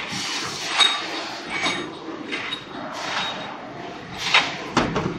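Metal clinks and clacks from a double disc grinding machine's automatic loading station, about one every second, over the machine's steady running noise, with a duller, deeper knock near the end.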